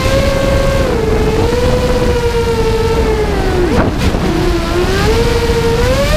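Whine of a 5-inch FPV racing quadcopter's Multistar Elite brushless motors and HQ 5x4.5 bullnose props, rising and falling with the throttle. The pitch drops and snaps back sharply about four seconds in, in the dive, and climbs near the end, over a low rumble.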